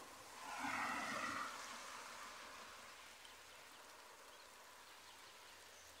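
Steady light rain falling, with one loud animal call about half a second in that lasts about a second.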